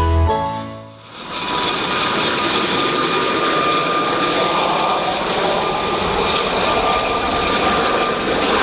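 Gazelle helicopter running steadily: a constant turbine whine with several high steady tones over the rotor and engine noise.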